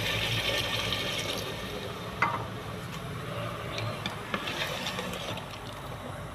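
Hot water pouring from a pan into a pressure cooker of potato-and-pea curry, the splash fading after a second or two; then a spoon and a ladle stirring the curry, with a few light clinks against the cooker.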